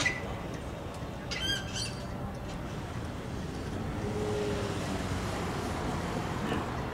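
A bird squawks: a sharp chirp right at the start, then a short run of harsh notes about a second and a half in, over steady outdoor background noise.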